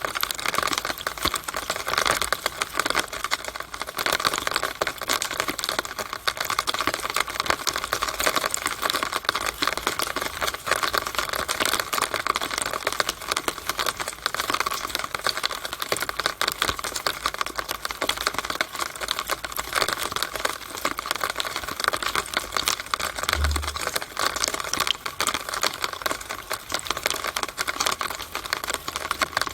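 Rainwater running down and dripping inside a downspout (rain gutter drainpipe): a steady, dense patter of quick water ticks and splashes.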